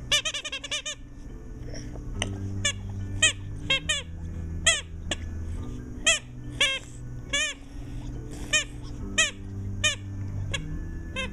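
Rubber squeaky teething toy being squeezed and squeaking. There is a quick run of squeaks in the first second, then single squeaks about every half second.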